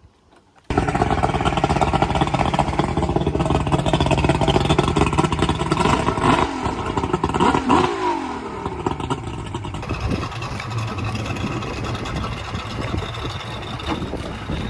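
Engine running at speed under way, a loud continuous rush of engine and moving air. It starts abruptly about a second in, the revs glide up and down around the middle, and it eases off a little about ten seconds in.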